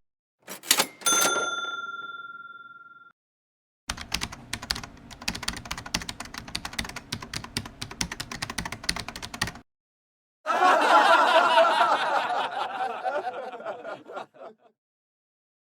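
A string of separate sound effects: two clicks and a bell ding that rings out over about two seconds, then about six seconds of rapid keyboard typing, then a noisy rushing sound of about four seconds that fades away.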